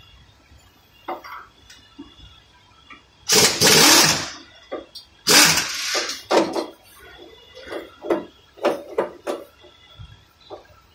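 Pneumatic wrench on an air hose, run in bursts on the bolts of the front differential: two runs of about a second each, then a string of quick trigger blips.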